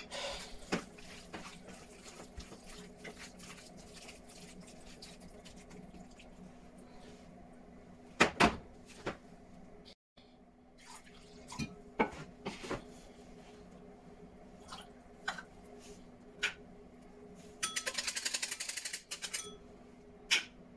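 Kitchen prep handling: bowls, spoons and a tin picked up and set down on a glass-ceramic stovetop, with scattered clinks and knocks, two sharp knocks about eight seconds in, and a rapid run of clinking lasting about a second and a half near the end. A steady low hum sits underneath.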